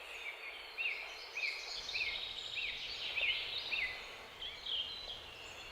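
Birds chirping: one bird repeats a short rising-and-falling note roughly every half second or so, over the higher chirping of other birds.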